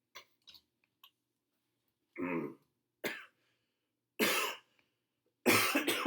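Coughing from a chest cold: single coughs about two, three and four seconds in, then a quick run of several coughs near the end.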